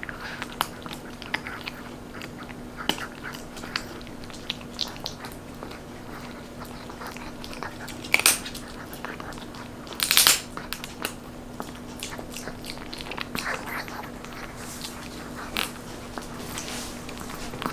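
Short-haired chihuahua gnawing a crispy dried duck knee treat: irregular crunching and cracking as it bites through the bone and cartilage, with two louder crunches about eight and ten seconds in.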